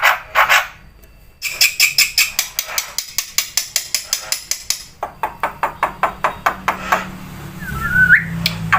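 Songbird singing on a song-tutoring recording: a fast run of sharp repeated chirps, about five a second, starting about a second and a half in, then a second run and a short whistled note that rises near the end. A low steady hum comes in behind it in the second half.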